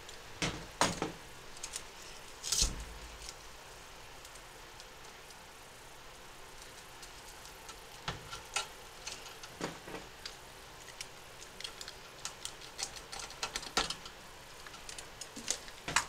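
Handling noise of a plastic-sheathed electrical cable whose outer jacket, slit with a utility knife, is being peeled back from the wires: scattered light clicks and rustles, with a few louder knocks in the first few seconds.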